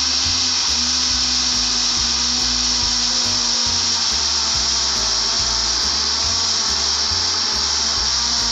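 Vitamix blender running steadily, blending frozen fruit with juice, with a music beat underneath.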